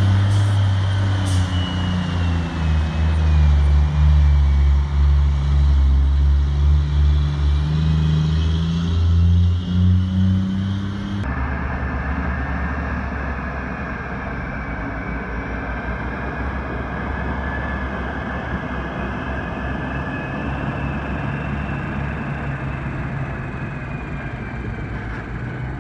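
Large mining haul truck's diesel engine running under load, its pitch sagging and rising again, with a faint high whine above it. About eleven seconds in the sound cuts abruptly to another steady engine run with a high whine.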